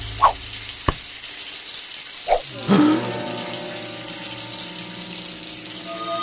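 Shower spray running steadily, with a sharp click just under a second in and a few short pitched blips over the water near the start and around the two- to three-second mark.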